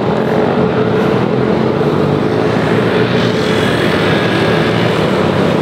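Loud, steady engine noise with a constant low hum and no break or change in level.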